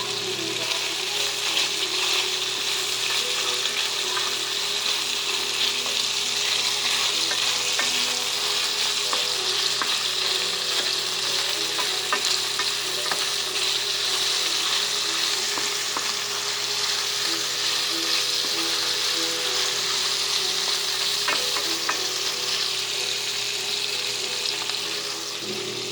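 Bacon frying in a pan: a steady sizzle with scattered sharp pops and crackles of spitting fat.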